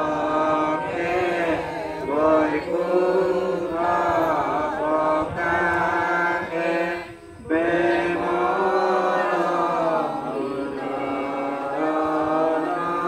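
Voices chanting a Vaishnavite devotional chant to Krishna and Hari in long, drawn-out held notes with slow rises and falls, broken by a short pause for breath about seven seconds in.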